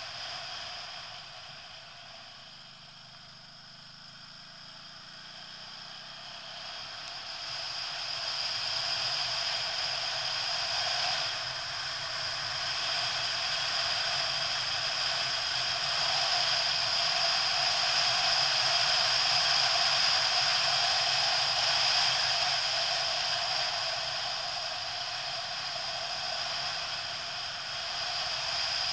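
Steady wind rush over a camera on a moving motorcycle, with the engine faint underneath. The rush falls away a couple of seconds in as the bike slows through a bend, then builds again as it speeds up and stays loud.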